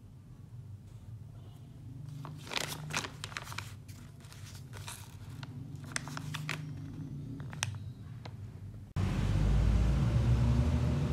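Clear plastic parts bag crinkling and crackling as it is handled, in a run of irregular crackles. About nine seconds in the sound cuts abruptly to a louder steady background noise.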